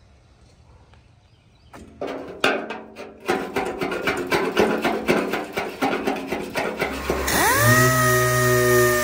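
A hand scraper rasping over a fender's old undercoating in quick, uneven strokes. About seven seconds in, a pneumatic dual-action sander starts up, its whine rising and then holding a steady pitch.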